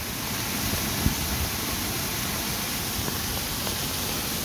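Steady rush of heavy floodwater pouring over a pond outlet and a crushed flume pipe, with one brief low thump about a second in.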